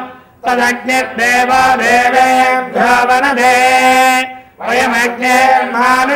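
Male Vedic chanting of Sanskrit mantras, recited on a nearly level note with small rises and falls in pitch. There are short breaks for breath just after the start and again about four and a half seconds in.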